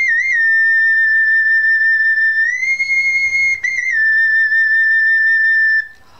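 A small handheld whistle blown in long, steady, high notes. The pitch steps up slightly for about a second past the middle, wavers briefly, then drops back and holds until it stops near the end.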